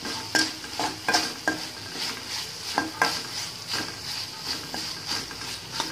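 Metal spoon scraping and knocking against an aluminium kadai in irregular strokes while stirring vegetables frying in oil, over a steady sizzle of the hot oil.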